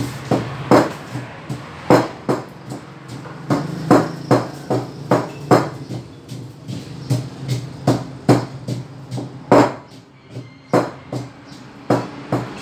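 Wooden pestle pounding in a large mortar: dull thuds in irregular runs of two or three strokes a second, with short pauses, as ingredients are crushed for a pounded salad.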